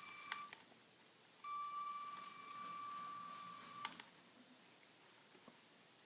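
Lego RC car's electric motor running in two short spells, a steady high-pitched whine that cuts off with a click each time.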